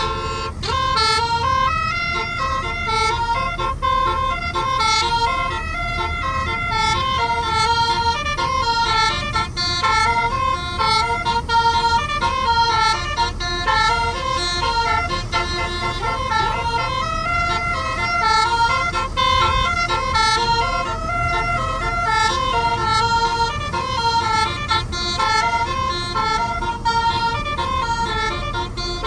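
Telolet basuri bus horn, a set of musical air horns playing a tune of many short notes stepping up and down without a break, over a steady low rumble.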